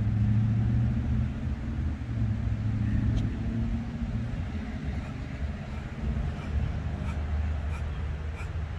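Low steady rumble like a motor vehicle running, with a hum that fades after the first few seconds. Past the middle, a run of short high squeaks comes about twice a second.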